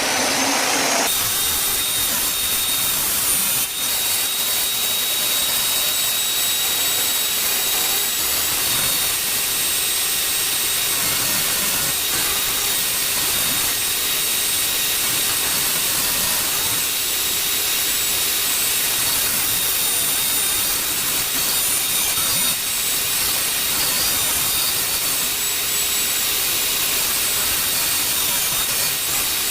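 A high-speed power tool running continuously while it cuts and shapes the end of a wooden baseboard for a coped joint: a steady high-pitched motor whine over the hiss of wood being cut.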